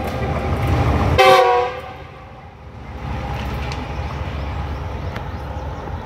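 A diesel locomotive's air horn blasting close by: a loud, steady chord of several notes that cuts off about a second and a half in. After it, a quieter steady low rumble of a train.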